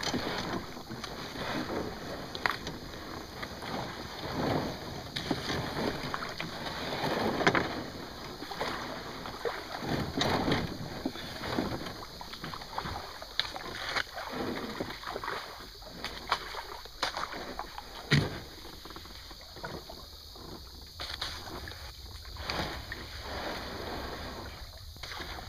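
Kayak being paddled through a shallow channel: irregular paddle splashes and water swishes, with a few sharp knocks, the loudest about 18 seconds in.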